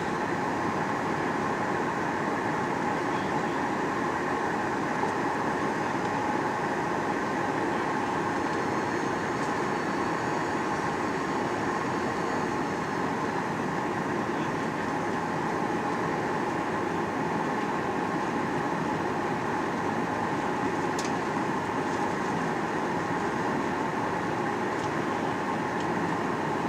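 Steady jet-engine and cabin noise inside a Boeing 737-800, with its CFM56 engines running and a constant hum with a few steady tones. There is one faint click about three-quarters of the way through.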